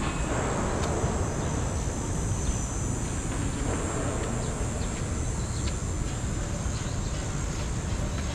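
Steady outdoor city ambience: an even low rumble with a faint high hiss and a few faint scattered ticks.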